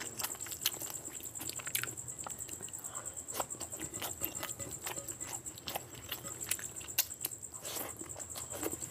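Wet, sticky squelching and clicking of a bare hand mashing and mixing rice with curry gravy on a plate, along with chewing and lip smacks from a full mouth. A faint steady high whine runs underneath.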